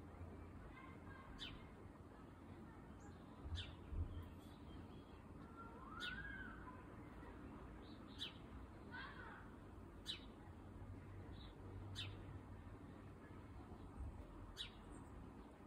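Male sparrow calling over and over: short, sharp, steeply falling chirps about every two seconds, which the uploader hears as a complaining "bau bau". A few lower, arched bird notes come in around the middle, and a low rumble sounds about four seconds in.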